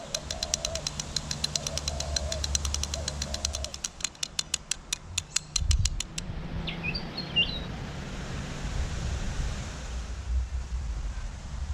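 A fast run of sharp clicks, about seven a second, slowing and stopping about six seconds in, over three short low cooing calls of a dove. A few high bird chirps follow about seven seconds in.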